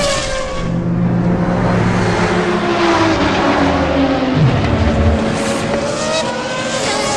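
Race car engines running at high revs, their pitch sliding down and back up as the cars speed past.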